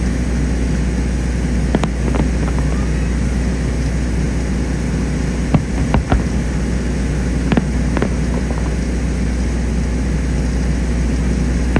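Aerial fireworks shells bursting: a steady deep rumble of explosions with several sharp cracks and bangs, the loudest cluster about halfway through.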